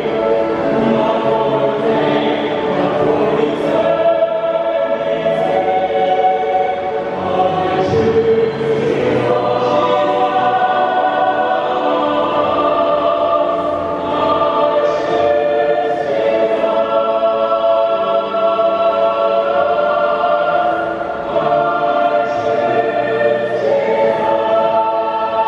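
Mixed choir of men and women singing in harmony, holding long sustained chords that shift every second or two.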